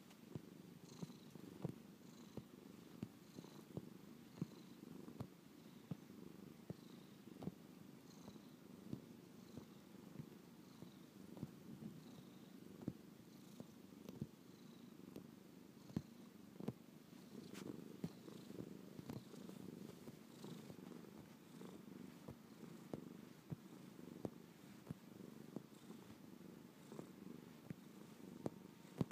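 Domestic cat purring steadily and faintly while kneading a fleece blanket with its front paws, with soft irregular clicks now and then.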